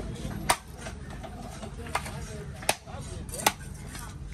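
Heavy knife blade striking a conch shell on a wooden chopping block, cracking the shell: four sharp chops, a second or so apart.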